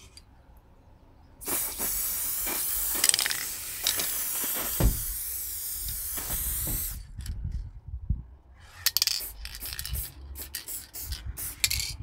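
Aerosol can of satin spray varnish hissing in one long continuous spray of about five seconds, then a run of short bursts.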